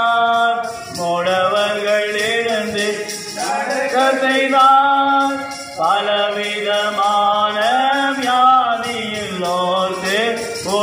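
Men singing a Tamil gospel song in long, drawn-out melodic phrases.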